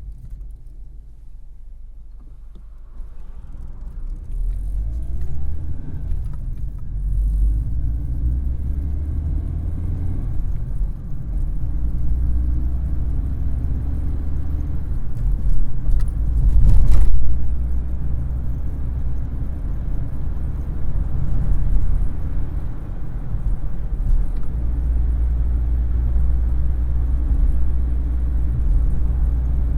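Car running, heard from inside the cabin: a steady low rumble that grows louder about three seconds in. A brief, louder knock or thump stands out about halfway through.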